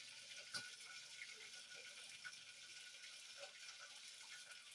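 Near silence: faint steady hiss of a quiet kitchen, with a single light click about half a second in.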